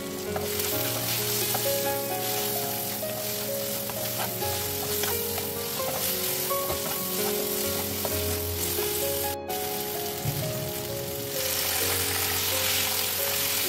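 Sliced onions, tomatoes and spices sizzling in a little oil in a non-stick pan while a spatula stirs them, over a light background melody. The sizzle grows louder near the end, as raw chicken pieces go into the pan.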